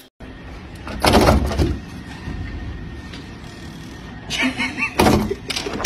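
A door bumping and rattling in its frame as a cat paws at it from the other side, loudest about a second in, with a voice near the end.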